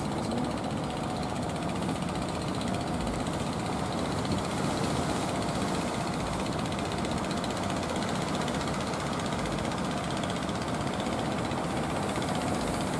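Engines of outrigger fishing boats running steadily, mixed with the rush of surf around their hulls.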